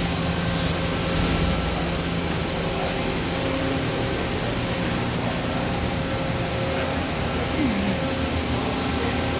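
Steady machine-shop hum: a constant drone of several steady tones over noise from running machinery and ventilation, with a brief falling tone near the end.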